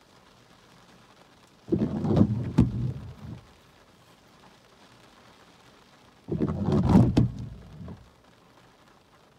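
Wind gusts buffeting the microphone twice, each a loud low rumble of about a second and a half. Between them there is only a faint steady hiss.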